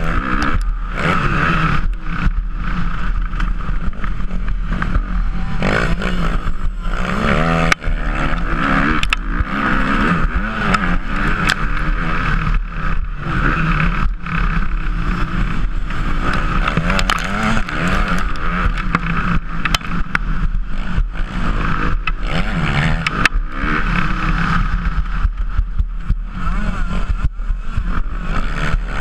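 Motocross bike engine heard from on board, revving up and down repeatedly as the rider accelerates and shifts around a dirt track, with wind noise and frequent sharp knocks and clatters.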